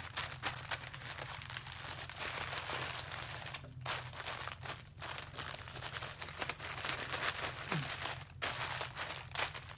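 Paper padded mailing envelope rustling and crinkling as it is handled and packed, with a couple of brief pauses.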